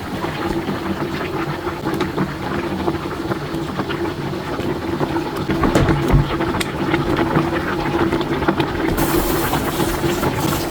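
A pot of Korean fish soup (eotang) boiling hard, bubbling and popping continuously over a steady low hum.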